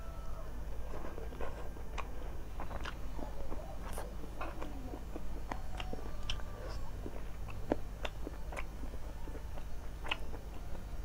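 Close-up chewing and wet mouth clicks of a person eating rice and chicken curry by hand, picked up by a clip-on microphone. The clicks come at an uneven pace over a steady low hum.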